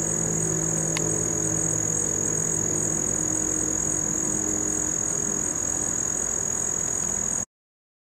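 A steady high-pitched insect chorus with a low, steady hum beneath it, cutting off abruptly about seven and a half seconds in.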